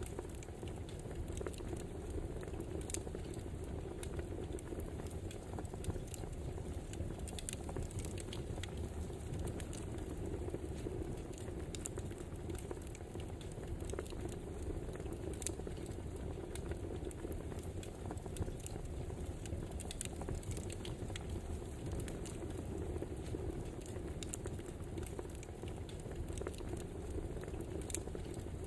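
Crackling wood fire: a steady low rush of burning logs with frequent small sharp pops and snaps scattered throughout.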